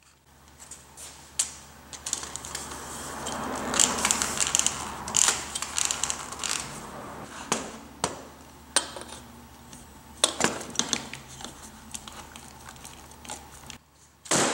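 The aluminium tubes and plastic end block of a suitcase's telescoping handle being handled and pried at: scattered clicks and knocks, with a stretch of scraping and rubbing in the first half.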